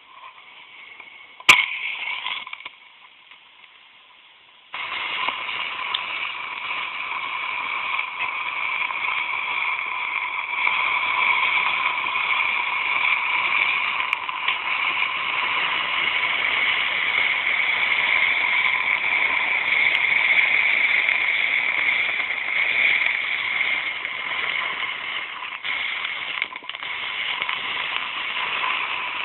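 A sharp click with a brief hiss about a second and a half in. Then, from about five seconds in, a tower of matches catching one after another: a sudden, continuous fizzing and crackling of match heads flaring and burning, which swells and stays loud.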